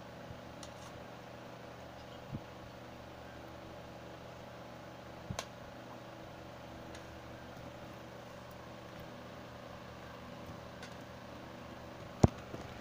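Steady low hum of a small motor or appliance, with faint knocks about two and five seconds in and a sharp click near the end.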